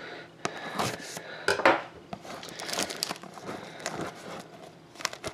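Clear plastic shrink wrap on a sealed trading-card box crinkling and tearing as it is cut and pulled open by hand, with irregular crackles and a few sharper snaps.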